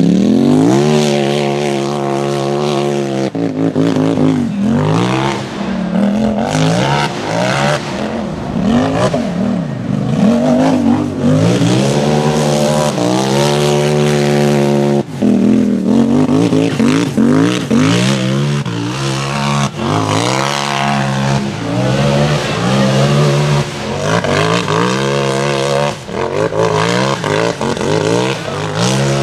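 Race UTV's engine revving hard: it climbs steeply and holds high revs for a few seconds at a time, with quick rises and falls of throttle in between.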